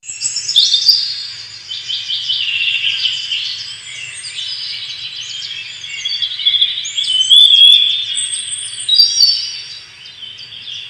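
Birdsong: several birds chirping and singing at once, a dense run of quick, high overlapping calls and trills.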